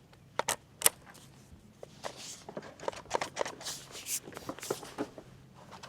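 A run of light clicks, taps and brief rustles at an irregular pace, as of objects being handled and set down. A faint steady hum runs underneath.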